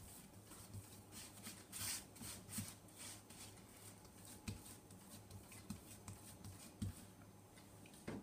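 Hands patting and pressing soft scone dough on a floured wooden board: a run of faint, irregular soft pats and brushing sounds.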